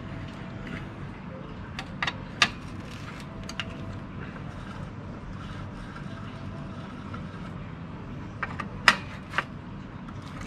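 Sharp clicks and knocks of tools and plastic body parts being handled during scooter disassembly, in a cluster about two seconds in and another near the end, over a steady low hum.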